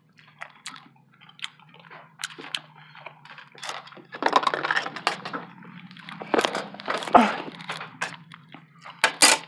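Close-miked chewing of a breakfast burrito, with wet mouth clicks and heavier bouts of chewing about four and six seconds in, over a faint steady low hum.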